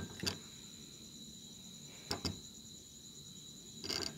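A few light clicks and knocks as an aluminium heatsink carrying an amplifier circuit board is handled and turned over: one near the start, a quick pair about two seconds in, and a short cluster near the end, over a steady high-pitched background tone.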